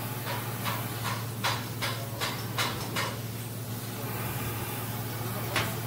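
Steady low hum of shop machinery and ventilation. Over it comes a run of sharp taps, about two or three a second, for the first three seconds, then one more tap near the end.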